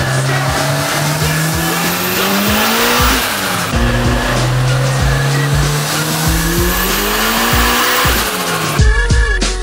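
Turbocharged Honda Civic engine at full throttle on a chassis dyno, its pitch climbing steadily, dropping back about three seconds in, then climbing again until it cuts off near the end. Hip-hop music with a steady beat runs underneath.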